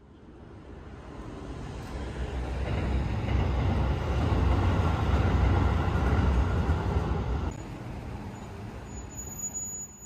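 A vehicle passing close by. Its low rumble builds over the first few seconds, holds, then drops off sharply about seven and a half seconds in, with a thin high whine near the end.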